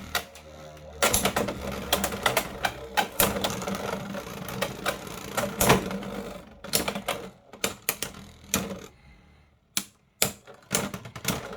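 Two Beyblade X spinning tops, Talon Ptera and Steel Samurai, spinning and clashing in a plastic stadium, giving a fast run of sharp clacking hits. The hits thin out and stop about nine seconds in as the tops wind down to a spin finish. A few scattered clicks follow.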